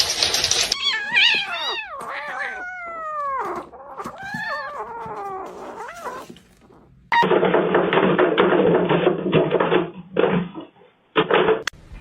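A cat yowling and meowing: a run of drawn-out calls, most of them falling in pitch. About seven seconds in it gives way to a few seconds of dense, muffled noise.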